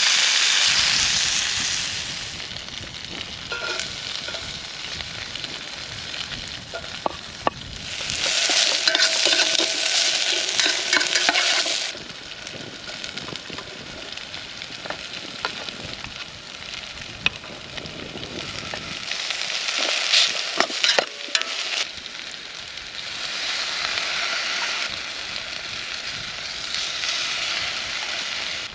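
Food frying and sizzling in a pan over an open fire. The sizzle swells loud and dies back several times, with scattered sharp pops and clicks.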